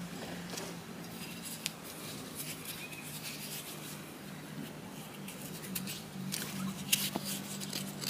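Small rustles and clicks of a hand handling a dug-up spoon close to the microphone, busiest about six to seven seconds in with one sharper click, over a faint steady low hum.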